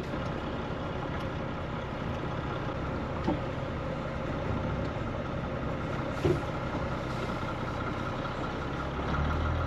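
ERF EC11's Cummins M11 straight-six diesel running at low revs, heard from inside the cab as the lorry is manoeuvred slowly. Two short knocks come about three and six seconds in.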